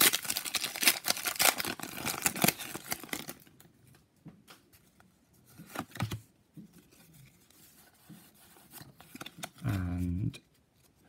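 Foil Pokémon booster pack wrapper crinkling and being torn open for about the first three seconds. Then quiet handling of the trading cards with a few soft clicks. A short low hum of a voice comes near the end.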